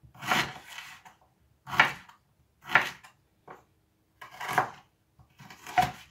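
Chef's knife cutting ginger on a wooden chopping board: about five firm cuts, each ending in a knock of the blade on the board, spaced a second or more apart with a lighter cut between them.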